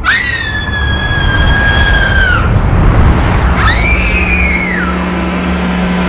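A girl's high-pitched screams, a long one lasting about two and a half seconds and then a shorter one that rises and falls, over a loud rushing whoosh of a vortex sucking her in.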